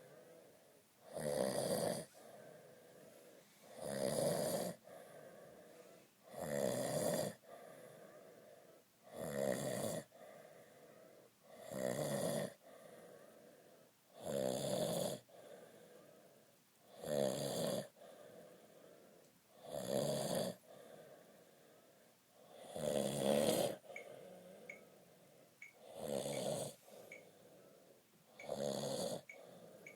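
A man snoring in a steady rhythm: about eleven snores, one every two to three seconds, each lasting about a second, with quiet breathing between them.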